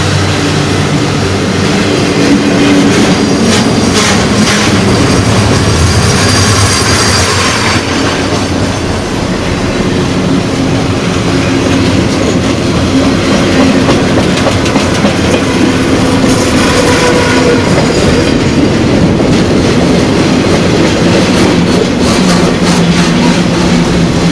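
CSX intermodal freight train's flatcars loaded with highway trailers rolling past close by: a loud, steady rumble of steel wheels on rail, with runs of clicking as the wheels cross rail joints.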